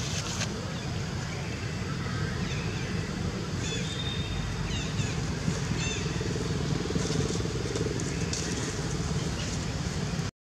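Steady low outdoor background rumble, with a few faint high chirps between about four and six seconds in. The sound drops out for a moment near the end.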